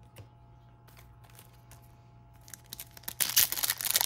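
Foil wrapper of a Topps MLS soccer card pack crinkling loudly as it is torn open by hand, starting about three seconds in. Before that there are only a few faint clicks.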